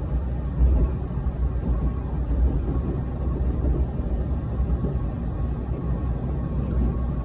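Tobu Railway commuter train running at speed, heard from inside the carriage as a steady low rumble.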